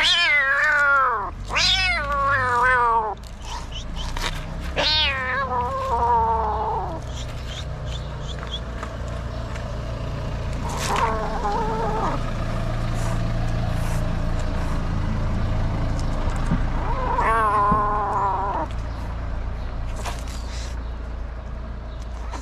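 Black-and-white kitten crying out in loud, distressed meows as it protests at being held down and wiped. There are about five wavering cries that fall in pitch: two close together at the start, one a few seconds later and two more spread further apart.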